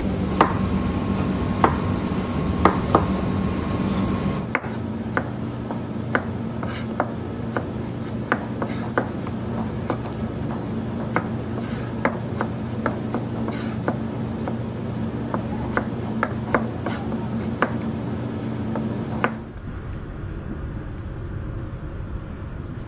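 A knife scraping the peel off a potato, then a knife cutting peeled potatoes on a plastic cutting board: sharp strikes about two a second, over a steady low kitchen hum. The strikes stop near the end, leaving the hum.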